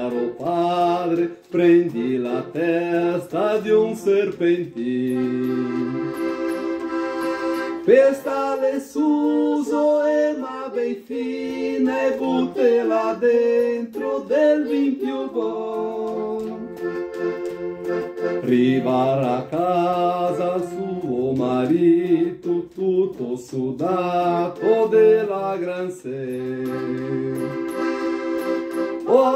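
Piano accordion playing the accompaniment to an Italian folk song, with a man and a woman singing together over it.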